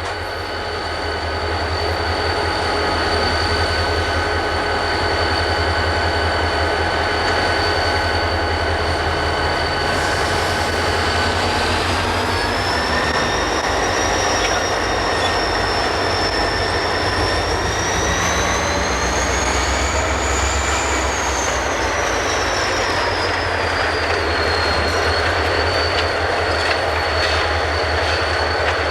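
Train rolling by with its steel wheels squealing on the rails: several steady high-pitched squeal tones over a low rumble. The squeal climbs in pitch partway through, then drops back.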